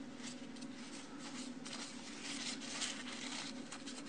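A wiping cloth rubbing over the painted plastic of a model kit part in short repeated strokes, wiping away excess panel line wash. A steady low hum sits underneath.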